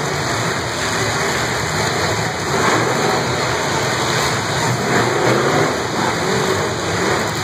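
Demolition derby cars' engines running and revving in the arena, mixed with crowd noise into a loud, steady wash of sound.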